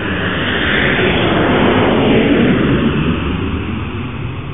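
Jet aircraft flying past: the noise swells to a peak about two seconds in, its pitch sliding down as it passes, then fades away.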